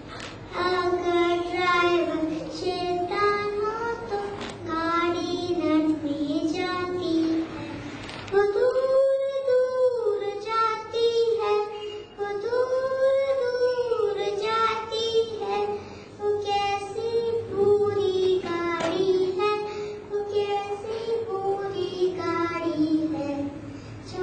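A young girl singing a song into a microphone, in phrases of held, wavering notes with a brief break about eight seconds in.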